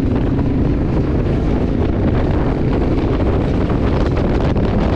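Heavy wind buffeting the microphone of a motorcycle on the move, with the AJP PR7's single-cylinder engine running steadily underneath.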